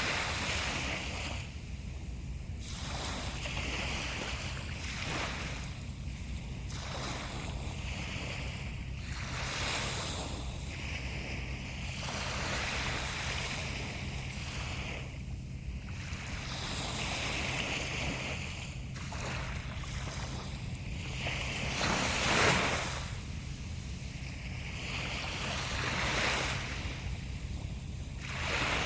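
Sea waves washing in, one hissing surge every two to three seconds, with a steady low rumble underneath. The loudest surge comes about three quarters of the way in.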